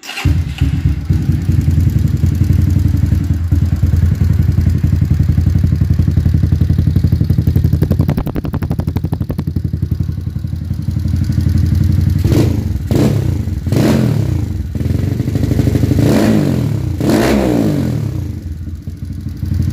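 A Honda Titan 150's single-cylinder four-stroke engine, bored out to 190cc, starts up and idles with a fast, even beat. It gets several quick throttle blips between about twelve and seventeen seconds in. Under the running there is a valve clatter, which the builder says such a build will always make: the high-overlap cam brings the valves close together, and it depends on the valve clearance.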